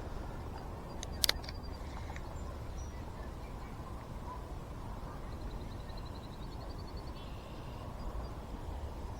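Outdoor ambience with a steady low rumble, two sharp clicks about a second in, and a brief fast high trill in the middle.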